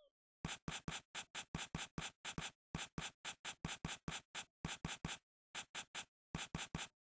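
Rapid series of short, identical ticks, about four or five a second with a few brief pauses, one for each playing card that appears as cards are laid out to spell letters. The sound is a repeated click effect for cards going down on felt.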